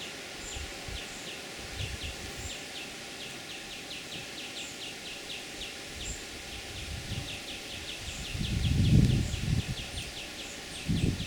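Outdoor natural ambience: rapid trains of short high chirps or ticks repeat several times a second throughout. Low rumbling bursts rise from about eight seconds in and are the loudest sound.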